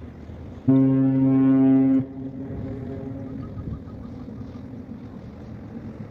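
A large ship's horn sounds one deep, steady blast of about a second and a half, then cuts off, its echo trailing on faintly for about another second and a half.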